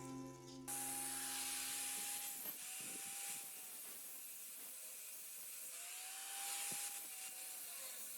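Flap disc sander running against a steel bicycle frame: a high whine over a hiss of abrasion, the whine sagging in pitch and recovering a few times as the disc is pressed into the metal. Guitar music ends in the first second.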